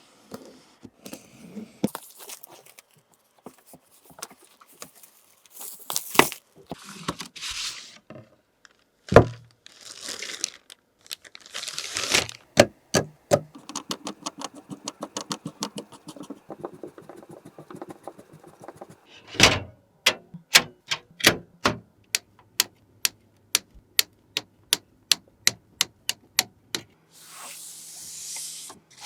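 Close-up sharp clicks, taps and scrapes of hard objects being handled, with several short bursts of rustling. From about 20 seconds in, crisp clicks come evenly, about two a second.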